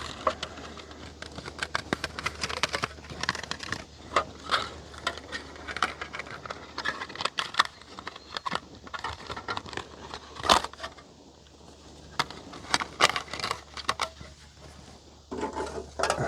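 Camp stove windscreen being handled and set up around an alcohol stove: a string of clicks, rattles and crinkling, with a sharp knock about ten seconds in, the loudest sound.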